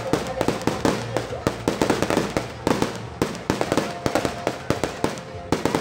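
Aerial fireworks bursting overhead: a rapid, irregular string of bangs and crackles, several a second.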